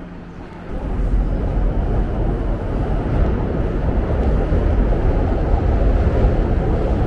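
Outdoor city street noise with wind rumbling on the microphone, a loud steady low rumble that cuts in suddenly about a second in, after a quieter indoor hum.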